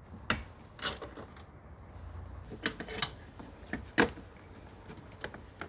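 Scattered clicks and knocks of a hand tool and metal parts as the 10 mm bolt holding the main relay behind the dash is undone and the relay is worked loose. A few sharp ticks stand out over faint handling noise.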